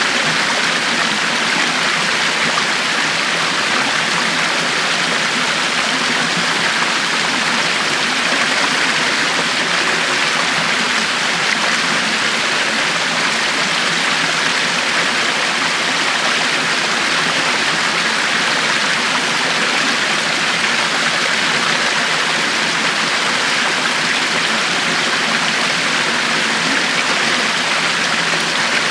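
A river flowing steadily over rocks, a constant rushing and babbling of water with no change in level.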